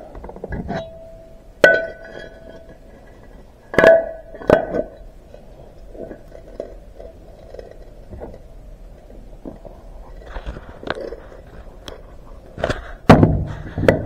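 Metal tractor shifter parts, the shift lever and the steel shifter housing, knocking against each other and the wooden workbench as they are handled. There are several sharp clanks, the first few ringing briefly, with a louder pair of knocks near the end.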